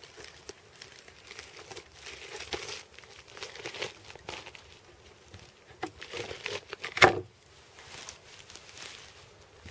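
Irregular scraping and rustling of boots and clothing against pine bark as a man climbs down the trunk, with one sharp, loud knock about seven seconds in.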